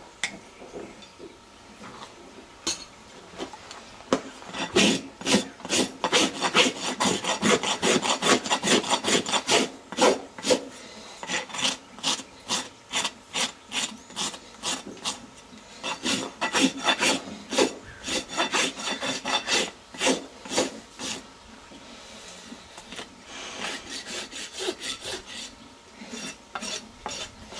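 A farrier's rasp being pushed in quick, rhythmic strokes across a horse's hoof wall, rasping away the flares on the sides. The strokes come in several runs with short pauses between them.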